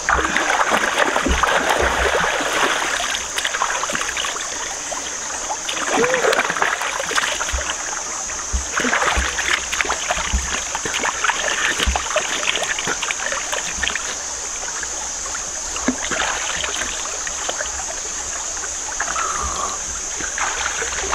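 Hands splashing and scooping water in a shallow stream, in several spells of splashing with quieter trickling between them.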